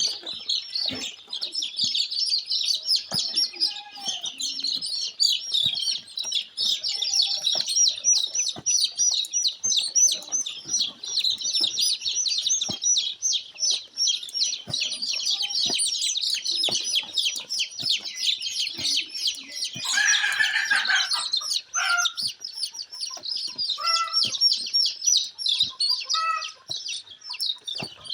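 A flock of young brown layer chickens peeping densely and continuously, with one louder call about twenty seconds in and a few short, lower calls near the end.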